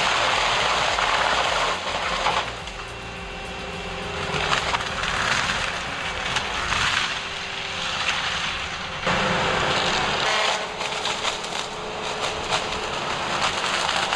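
Forestry disc mulcher tearing through wood, a dense splintering and crackling shred of material. The sound shifts abruptly twice, about two seconds in and again about nine seconds in.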